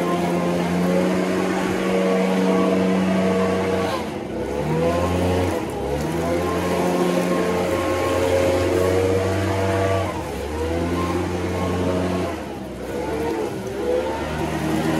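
Gas-powered leaf blower running at high throttle. The engine eases off and revs back up three times: about four seconds in, about ten seconds in, and near the end.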